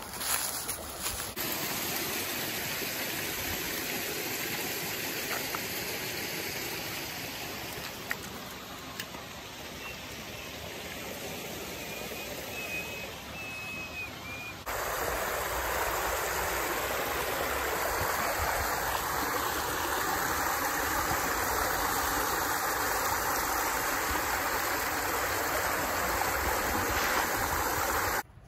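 Rushing creek water: a steady hiss of a fast-running stream, stepping up louder about halfway through.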